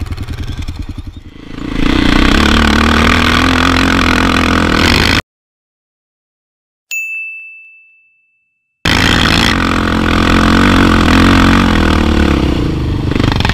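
Suzuki LT-Z sport quad's single-cylinder four-stroke engine idling, then revving up with a rising pitch until it cuts off suddenly. After a second of silence a single ringing chime fades away, an edited-in sound effect, and then the engine is running loud again.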